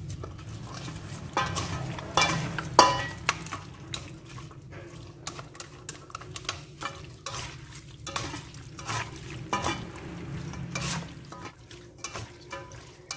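Wooden chopsticks stirring raw duck pieces through a wet curry marinade in a stainless steel bowl, with irregular clicks and scrapes against the metal. Near the end the mixing is done by hand.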